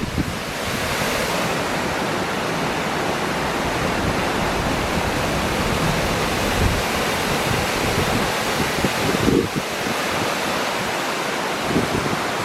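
A waterfall's steady rushing noise, with wind buffeting the microphone in low rumbles, strongest about nine seconds in.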